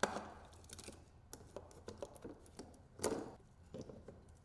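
Plastic wiring-harness connectors being unclipped and handled: a run of small clicks and rustles, with louder knocks at the start and about three seconds in.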